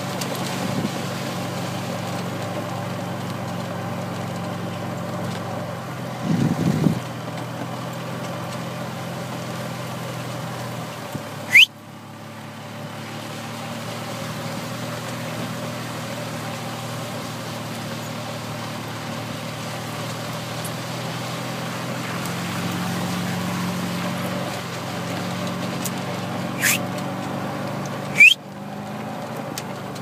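Golf cart motor running steadily as the cart drives across a field, with a short louder low sound about six seconds in. Twice, at about twelve seconds and near the end, a sharp rising high squeak cuts in and the motor hum briefly drops.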